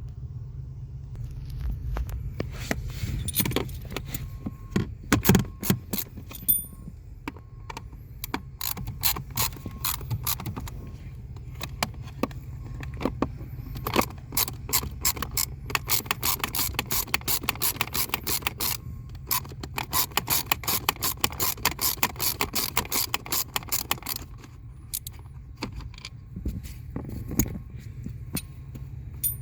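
Ratchet wrench with an 8 mm socket clicking in runs as it backs out the blower motor's mounting screws, with the fastest, densest clicking in the middle, over a steady low hum.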